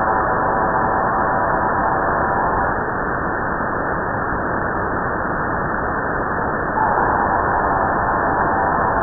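Shortwave radio receiver audio on 4623 kHz: a cluster of several steady tones stacked over static, which the uploader takes for a possible data burst. The tones drop out about three seconds in, leaving only static, and return abruptly, slightly louder, about seven seconds in.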